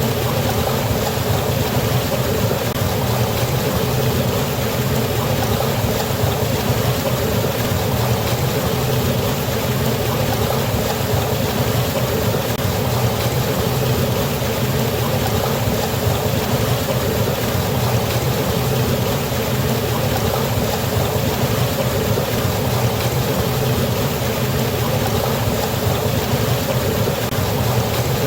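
Waterfall: water falling and rushing steadily, one even noise that never changes.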